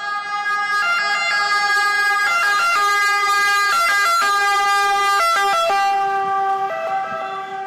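Ambulance siren sounding as the ambulance drives past, its pitch dropping a little near the end as it goes by.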